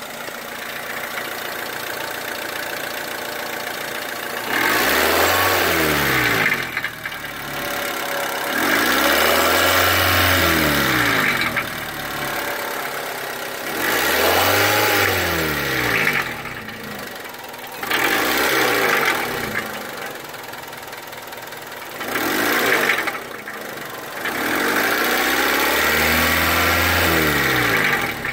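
Honda Civic EK's four-cylinder engine, heard up close under the open hood, idling and then revved six times, its pitch climbing and falling back to idle each time; some revs are held for two to three seconds, others are short blips.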